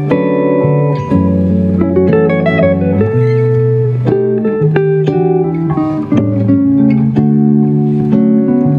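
Instrumental music led by plucked guitar: a quick run of picked notes over lower sustained notes.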